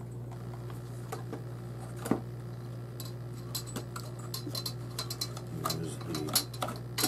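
Hard plastic parts of a JJRC H26 quadcopter's arm shell clicking and rattling as they are handled and pried apart, with a sharp click about two seconds in and a run of small clicks in the second half. A steady low hum runs underneath.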